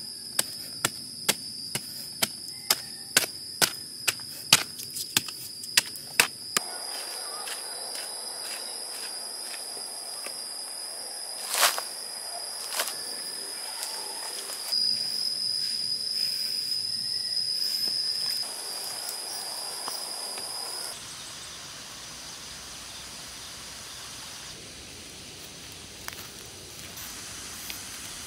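A bamboo digging stick striking packed clay earth in repeated blows, about two a second, for the first six seconds, then a couple of single knocks. A steady high insect drone runs behind it and drops away about 21 seconds in.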